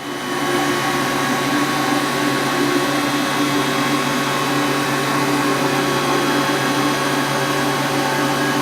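Cincinnati Arrow 1000 CNC vertical machining center running a demonstration program, its spindle turning at 500 RPM while the axes traverse: a steady machine hum with several held tones over a motor hiss.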